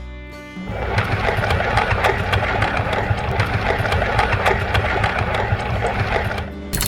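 A few pitched music notes, then a fast, steady mechanical rattle like a machine running, which changes abruptly near the end.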